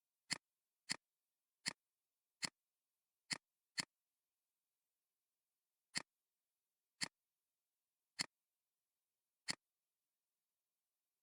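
Computer mouse clicking, ten single sharp clicks at uneven intervals, several in quick succession in the first four seconds and then more spread out.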